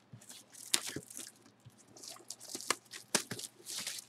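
Plastic shrink wrap crinkling and tearing as it is pulled off a cardboard box, in irregular crackly bursts with a few sharp snaps.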